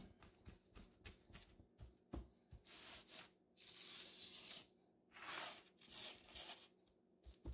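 Hand brushing and pressing loose coco fiber substrate across a flat board: faint scratchy rustles in several separate strokes, the longest about four seconds in.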